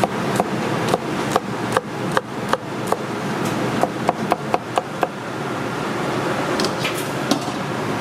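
Chinese cleaver chopping green beans on a wooden cutting board: sharp knocks about two or three a second, coming faster just before the middle and stopping about five seconds in, with a few lighter clicks later. A steady rushing noise runs underneath.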